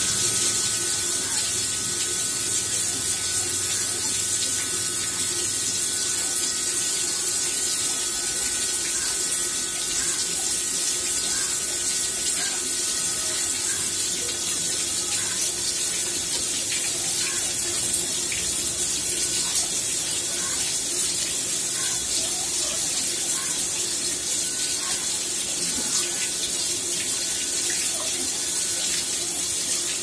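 Water jets spraying from a homemade PVC-pipe rotating spray arm, the kind used to model a dishwasher's spray arms, and splashing down onto a wet tiled floor: a steady hiss with a faint even hum beneath it.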